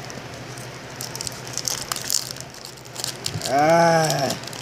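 Foil wrapper of a Pokémon booster pack crinkling and tearing as it is ripped open, in a string of crackles. About three and a half seconds in, a loud wordless vocal hum of about a second, rising then falling in pitch.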